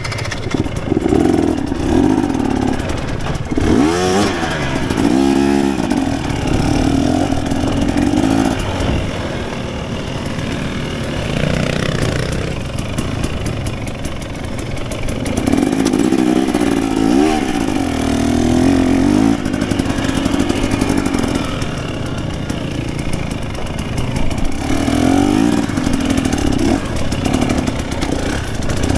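KTM 250 dirt bike engine running under load, its pitch rising and falling again and again with throttle and gear changes, over a steady rushing noise.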